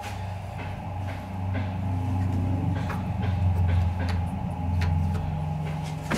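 A steady low droning hum that swells about a second and a half in, with a faint high whine over it, and scattered light clicks of small metal parts being handled as a screw is fitted at a small engine's carburetor.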